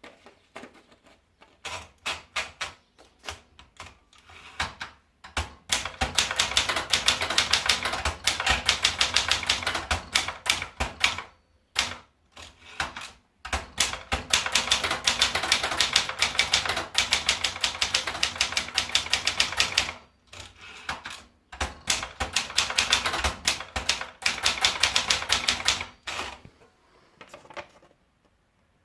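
Brother JP-1 typewriter typing. It starts with single strikes spaced apart, then goes into three long runs of rapid, even strikes separated by short pauses.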